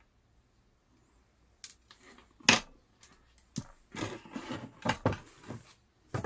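Hand tools and small RC car kit parts being handled and set down on a desk mat: quiet at first, then a string of metal clinks and knocks from about a second and a half in, the sharpest about two and a half seconds in.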